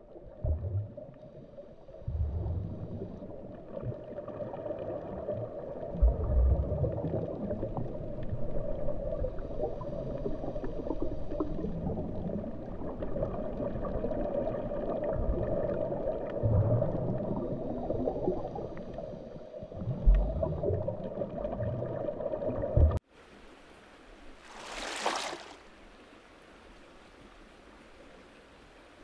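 Muffled underwater ambience with several deep thuds, which cuts off suddenly about three-quarters of the way through. A single short splash follows a couple of seconds later, as someone breaks the water surface.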